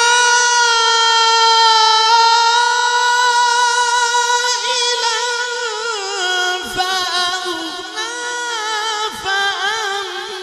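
A male qari's voice in melodic Quran recitation, holding one long high note for several seconds, then breaking into wavering ornamental turns and stepping down in pitch about six seconds in.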